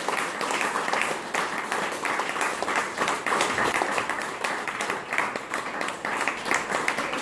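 A small audience applauding, many hands clapping.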